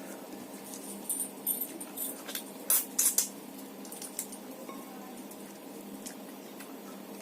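Close-up eating sounds as rice and fish curry are eaten by hand: a run of short wet clicks and smacks, the loudest about three seconds in, over a steady background hum.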